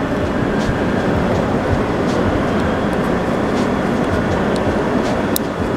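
Steady, loud low rumbling background noise, with a few faint clicks from plastic tail-light wiring connectors being handled.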